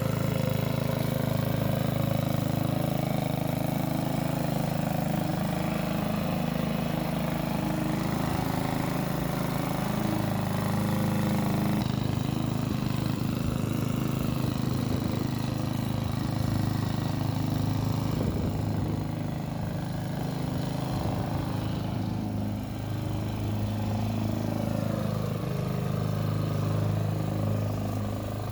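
Engine of a Hyundai HY145V petrol walk-behind lawn mower running steadily, its note wavering slightly near the end.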